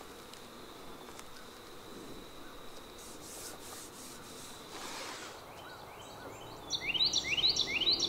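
Soft ripping of painter's tape being pulled off the roll, over a faint steady high hum. About seven seconds in, a bird starts a quick series of rising chirps, about three a second.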